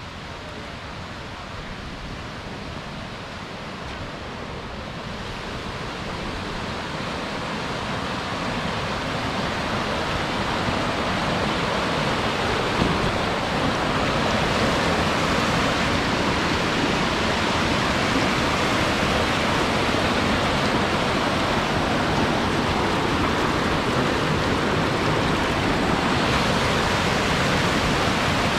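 Stream water rushing over a rock ledge in a small cascade: a steady rush that grows louder over the first ten seconds or so, then holds steady.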